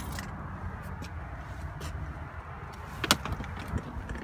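The truck's 6.7-litre Cummins diesel idling with a steady low rumble, with one sharp click about three seconds in.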